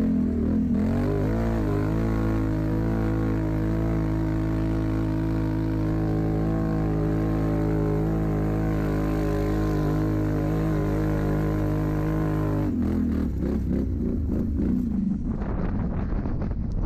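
ATV engine running hard at steady revs on a sandy uphill climb. At about thirteen seconds the steady note breaks up as the throttle eases off, and wind buffets the microphone toward the end.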